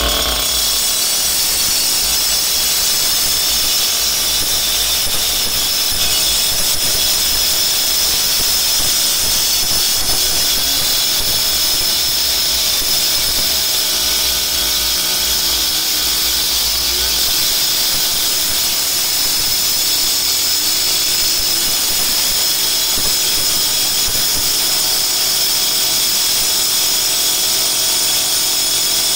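Makita EK6100 12-inch power cutter, its 61 cc two-stroke engine held at high revs, with the cutting disc grinding steadily through a concrete pipe.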